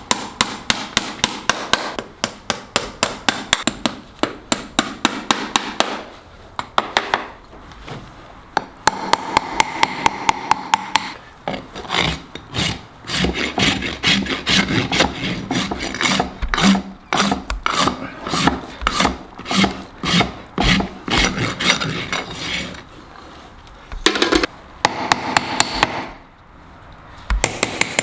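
Farrier's hammer tapping in quick runs of about four or five blows a second, likely on horseshoe nails, with stretches of hoof rasp scraping between the runs.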